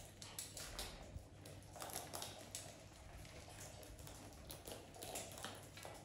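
Faint, irregular light clicks and taps, several a second.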